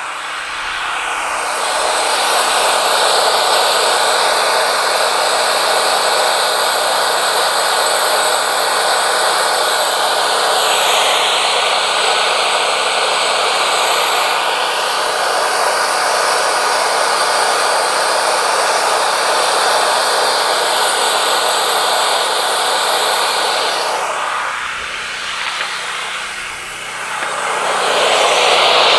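Wood-Mizer LT40 Wide band sawmill running with its blade sawing through a knotty yellow pine cant, a loud steady machine-and-cutting noise, fed slowly so the blade won't wave in the knots. The sound dips briefly about 25 seconds in, then rises again.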